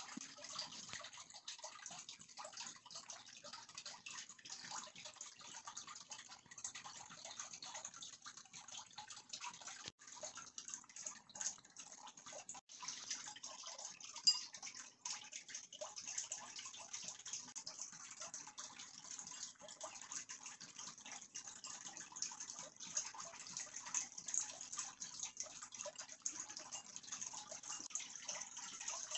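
Cardboard box and paper user manual being handled: faint, irregular rustling and small scrapes and clicks, with one sharper tap about 14 seconds in.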